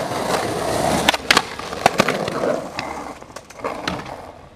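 Skateboard wheels rolling over concrete paving, with a few sharp clacks of the board about one to two seconds in. The rolling dies down after about two and a half seconds, leaving scattered light ticks.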